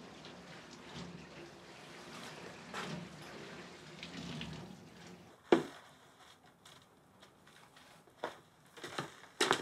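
A person sipping and slurping a drink from a mug, a few wet swells of sound. A sharp click comes about five and a half seconds in, and a few short knocks near the end.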